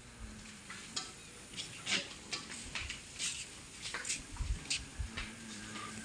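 Goats shifting about in a pen: faint, scattered light clicks and rustles at irregular intervals.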